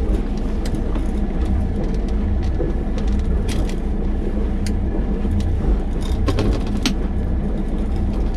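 Boat engine idling with a steady low rumble, with scattered light clicks as a jig line and its lures are handled.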